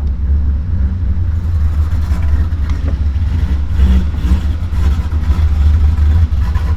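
Ford Mustang 5.0 V8 running with the choppy, uneven lope of a ghost cam tune, through American Racing headers, an X-pipe and a Roush axle-back exhaust. The chop comes from the tune advancing the timing and adding fuel.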